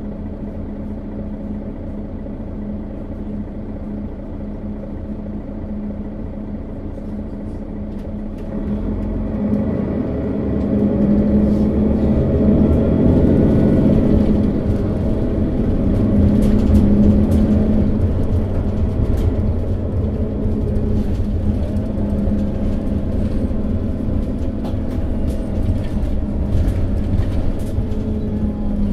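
Setra S415 NF city bus running, its diesel engine's steady low hum rising in loudness from about eight seconds in as it works harder, loudest around the middle, then easing off a little. Light rattles and clicks come through while it runs under load.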